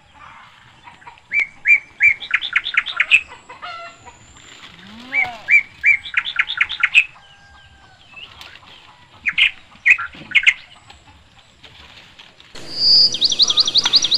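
A songbird singing: phrases of clear, repeated whistled notes that speed up as each phrase goes on, heard three times. Near the end comes a faster, higher run of notes.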